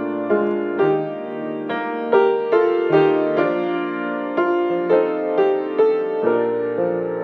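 Slow solo piano music, notes and chords struck about twice a second and left to ring.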